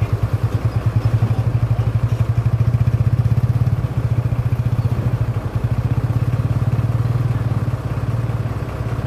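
Mitsubishi Fuso diesel truck engine running at low revs with a steady, even pulsing beat. It grows a little louder for a few seconds, then eases back slightly.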